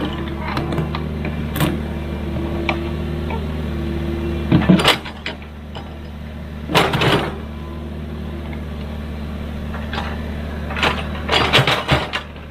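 Excavator's diesel engine running steadily, with loud metal clanks about five seconds in, again about seven seconds in, and a quick run of them near the end.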